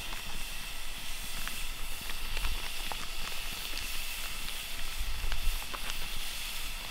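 Hot dogs sizzling as they cook: a steady hiss with scattered small pops.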